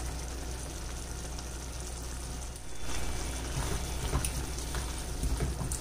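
Thick chickpea gravy (chole) simmering in a wide pan on low heat, a steady soft bubbling. About three seconds in, a wooden spatula starts stirring through the gravy, a little louder and more uneven.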